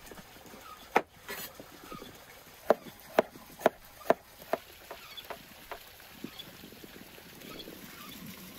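A series of sharp knocks from kitchen utensils at work: one about a second in, then a run of about two a second, growing fainter and sparser toward the end.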